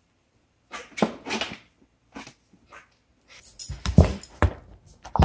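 A dog's short noises about a second in and again about two seconds in, then a run of close knocks and thumps near the end, the loudest about four seconds in.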